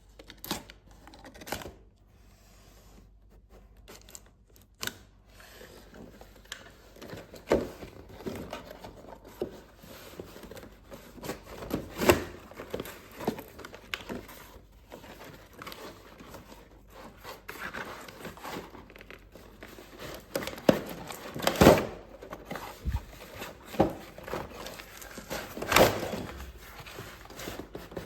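Toy packaging being unboxed by hand: continuous crinkling and tearing of wrapping, broken by sharp clicks and knocks, the loudest a few seconds apart near the middle and end.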